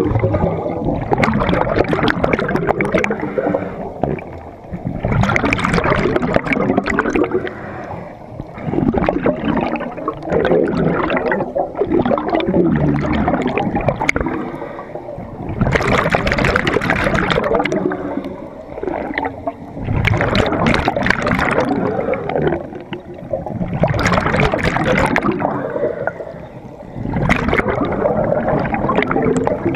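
Scuba divers' exhaled bubbles rushing out of their regulators underwater: a burst of bubbling roughly every four seconds, with lower gurgling between breaths.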